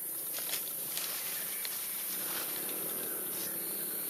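Steady, high-pitched hiss of an insect chorus, with a few faint clicks and rustles in the leaf litter.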